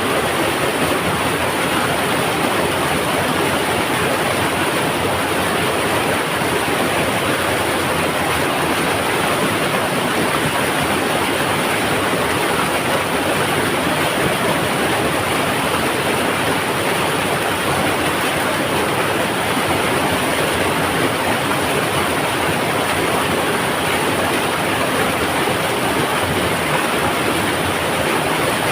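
Mountain river rushing over rocks: a loud, steady, rumbling roar of water that does not change.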